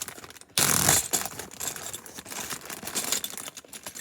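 A loud rustle about half a second in, then small plastic LEGO pieces clicking and clattering against each other as they are handled.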